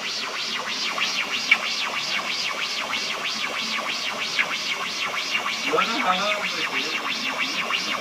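Cartoon soundtrack: a fast, even rhythm of short scratchy strokes, about five a second, with a brief wavering pitched sound about six seconds in.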